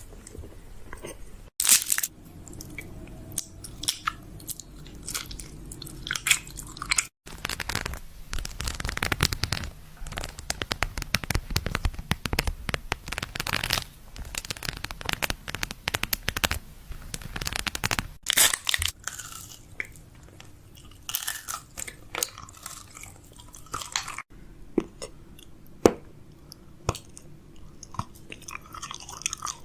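Crisp crunching and crackling food sounds, made up of many sharp clicks, in several short segments joined by abrupt cuts.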